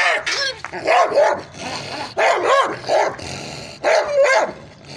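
A white bull terrier-type dog barking repeatedly, loud short barks that come mostly in quick pairs, about one pair a second.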